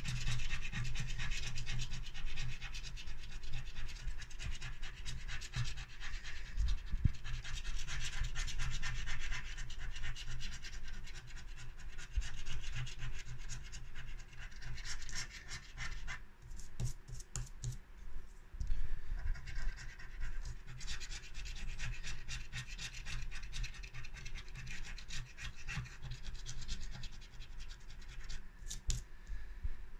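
Scratch-off lottery ticket being scratched, the silver coating rasped off the card in quick short strokes, with brief pauses.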